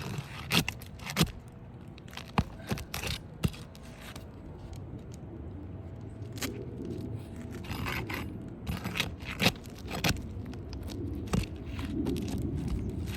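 Asphalt shingles being broken loose from their sealant strips on a roof: repeated scraping with sharp clicks and knocks.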